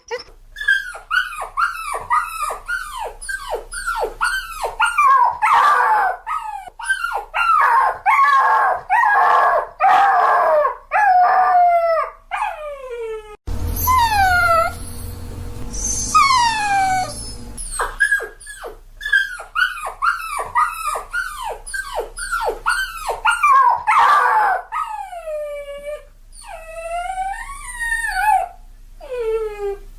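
A puppy crying: quick runs of short, high whimpers and yelps, each falling in pitch, two or three a second. About halfway through, a hissing background comes in and the cries turn slower and longer, then quicken again, with a few drawn-out whines near the end.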